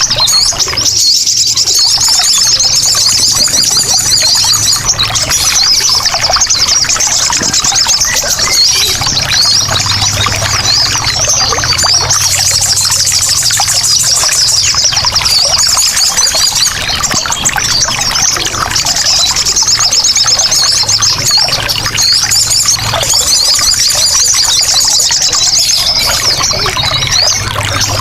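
Sogon birds singing loudly and continuously in dense, rapid chattering trills, over the steady sound of trickling water.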